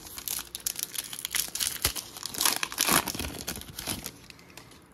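Plastic wrapper of a trading-card pack crinkling and tearing as it is opened by hand, a dense run of crackles that is loudest around two and a half to three seconds in and dies away just before the end.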